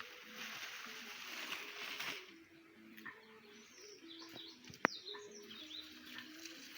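Birds chirping over rural outdoor background noise, with a short hiss in the first two seconds and a single sharp knock about five seconds in.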